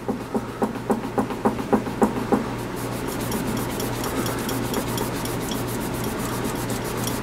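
A rag dampened with Armor All rubbed back and forth on the painted metal cabinet top of a Hallicrafters S108 receiver: quick strokes about three to four a second for the first two seconds or so, then softer, steadier rubbing.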